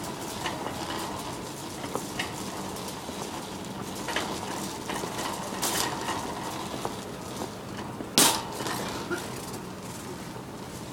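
Shopping cart rattling as it is pushed along a store aisle, with scattered clicks and a sharp clack about eight seconds in, over steady store background noise.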